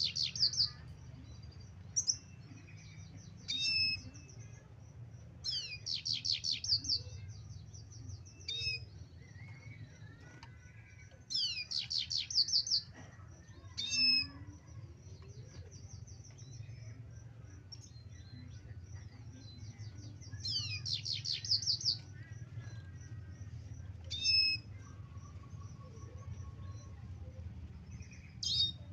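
Male red siskin singing in short bursts of rapid, high twittering notes every few seconds, a few phrases longer than the rest; the bird is starting to sing again after its molt. A steady low hum runs beneath.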